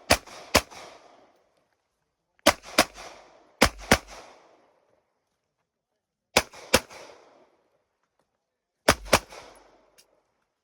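Ten gunshots fired as five quick pairs (double taps), each pair a fraction of a second apart and separated by gaps of one to three seconds. Each shot is sharp, with a short echo trailing after it.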